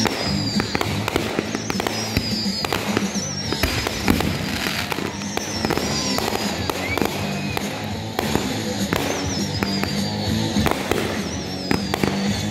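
Fireworks going off without a break: rapid pops and crackling from fountains and small aerial bursts, with high whistles that fall in pitch every second or two. Music with sustained low notes plays under them.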